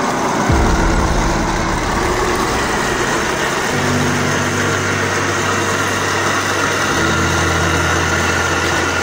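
Simulated engine rumble from a Heng Long 1/16 Leopard 2A6 RC tank's sound unit as the tank drives, steady and loud.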